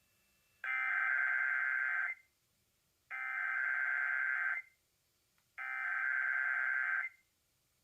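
Emergency Alert System SAME header: three identical bursts of rapidly warbling digital data tones, each about a second and a half long with about a second's gap between. It is the coded start of an EAS test alert broadcast by an FM radio station.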